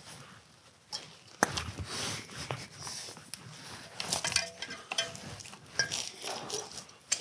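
Ignition leads being pulled off a V8 engine by hand: scattered clicks and rustling of the wires and their rubber boots, with a few short squeaks about halfway through.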